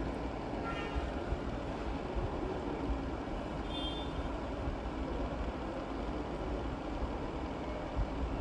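Steady low rumble of background noise, with faint irregular taps of a chef's knife cutting julienne strips on a plastic cutting board.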